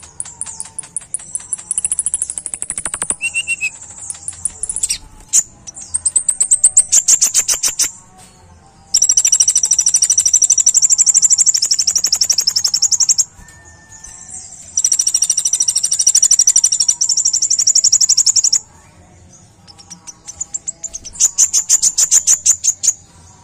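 Male kolibri ninja (a Leptocoma sunbird) singing: very high-pitched, rapid trills and chips, loud, in bursts of a few seconds with short pauses. The two longest trills run about four seconds each in the middle.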